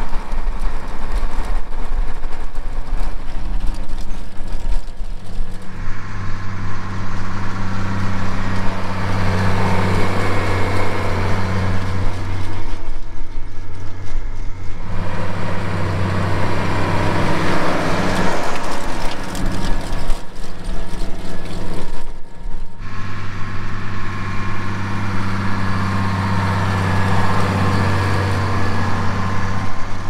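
Case IH tractor's diesel engine running steadily under load while pulling a rotary hoe through the soil, a deep steady hum. The sound drops away briefly twice, about 13 and 22 seconds in.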